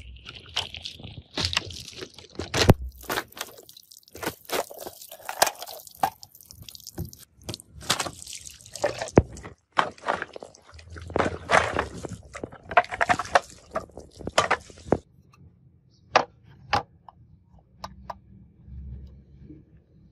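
Karambit knife slashing through water-filled plastic soda bottles: sharp cracks and crunches of the plastic being cut, with water spraying and splashing out over concrete. The cutting and splashing stop about three-quarters of the way through, leaving a few scattered clicks.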